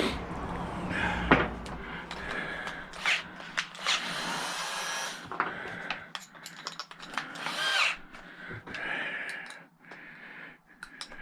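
Power drill-driver running in short bursts, backing screws out of a plastic booster-pack case, with clicks and knocks of handling between the runs.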